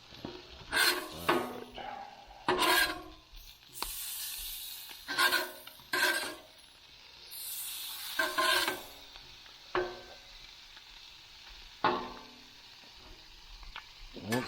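A metal spatula scraping across a steel flat-top griddle in short, irregular strokes, over the steady sizzle of food frying on the hot plate.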